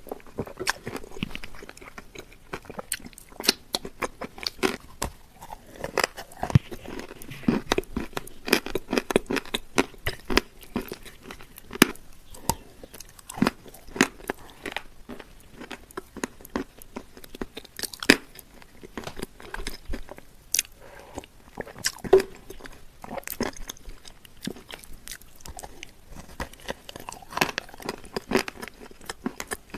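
Close-miked chewing of a mouthful of soft, crumbly shortbread, with wet mouth smacking and many sharp lip and tongue clicks.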